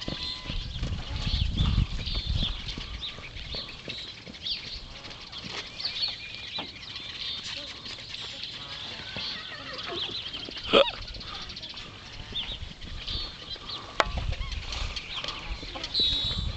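Birds chirping throughout, with dull hoofbeats of a Shire filly running on turf near the start and again near the end. A single sharp sound stands out about eleven seconds in.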